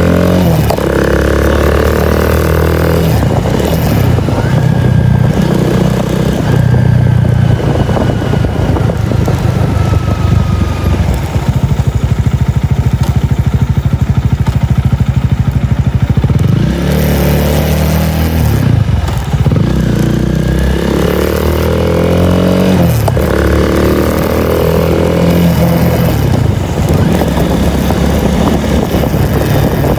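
Honda Rebel 250's single-cylinder engine running loud through an Over Racing SS megaphone muffler while being ridden. The engine note rises several times as it pulls through the gears, with a steadier cruise in the middle stretch.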